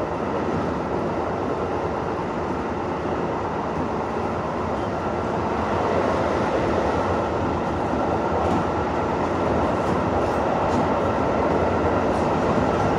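Inside a moving train carriage: the steady running noise of the train on the rails, getting a little louder about halfway through.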